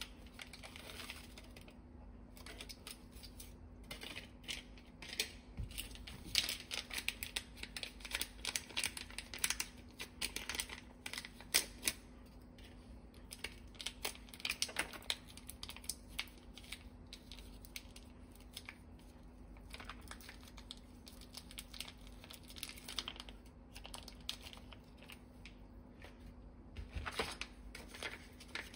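Small plastic seasoning sachets being handled, torn open and squeezed out, their packaging crinkling and crackling in quick, irregular clicks that come thickest in the first half and again near the end.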